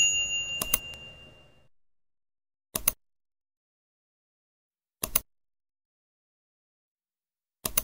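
End-screen sound effects: a bright ding rings out and fades over about a second and a half, then short double clicks come every two to two and a half seconds, with silence between them.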